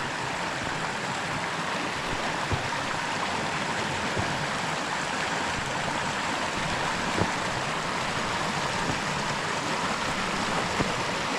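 A burn rushing over and through boulders: a steady rush of running water, with a few soft knocks on top of it.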